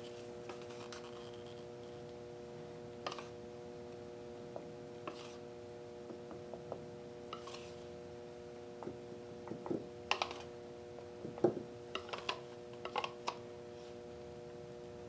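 Bubble wrap being pressed into and lifted off wet acrylic paint: scattered soft crinkles and clicks, thickest about ten to thirteen seconds in. A steady hum runs underneath.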